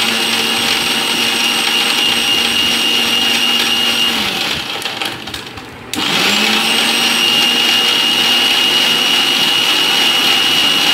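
Electric mixer grinder running at speed, blending yogurt, crushed ice and water into lassi, with a steady motor whine. About four seconds in it is switched off and winds down. Under two seconds later it starts again, its pitch rising back up to a steady run.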